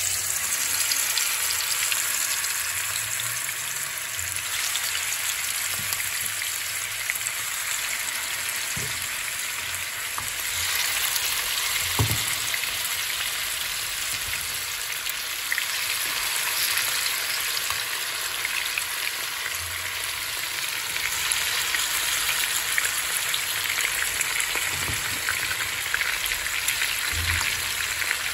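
Marinated beef chunks sizzling in hot oil in a frying pan: a steady frying hiss, with a few soft knocks as more pieces go into the pan.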